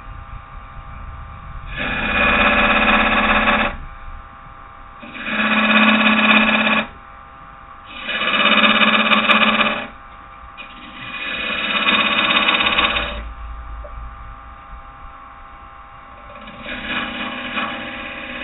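Wood lathe turning a piece of green oak while a carbide-tipped detailer tool cuts grooves into it: four loud cuts of about two seconds each with short gaps of the lathe running between, and a fainter cut starting near the end.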